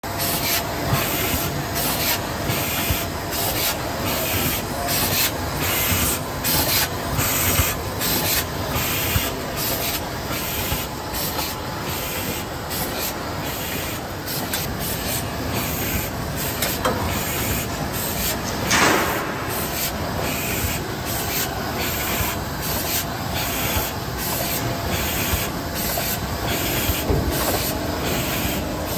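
Laizhang MY-1300 automatic die-cutting machine running, its feeder taking sheets of board off the pile: steady mechanical running noise with an even rhythm of short hissing strokes. There is one louder swish about two-thirds of the way through.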